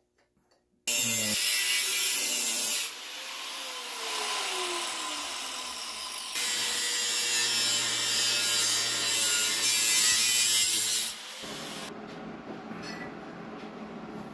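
Hand-held angle grinder grinding a stainless steel exhaust pipe, a loud hissing scream of the disc on metal starting about a second in, with a falling whine partway through. It drops to a quieter noise after about eleven seconds.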